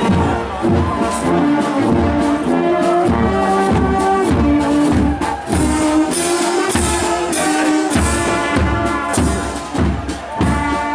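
Brass band playing a tune, with held notes over a regular drum beat.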